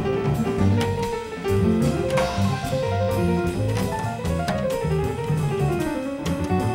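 Live jazz trio playing: an upright double bass plucked by hand, with drum kit and piano.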